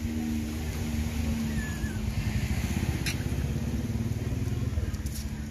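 A motor vehicle engine running close by: a low, rapidly pulsing rumble with a steady hum, and one sharp click about three seconds in.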